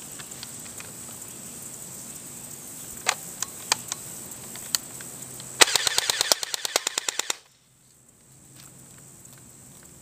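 Airsoft M16 replica firing: a few single shots, then a rapid full-auto burst of about ten shots a second lasting under two seconds, which cuts off abruptly.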